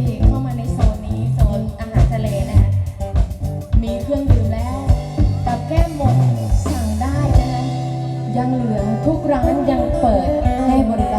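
Live band music: a bending, plucked-string lead melody over a steady bass line and regular drum beats.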